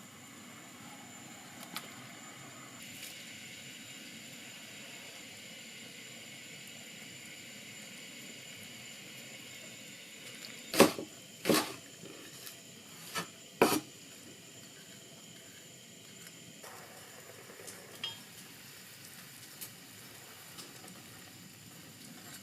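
Cooking sounds: a steady sizzle of food in a hot pan, with four sharp clinks of cookware and utensils in the middle and a few lighter ticks afterwards.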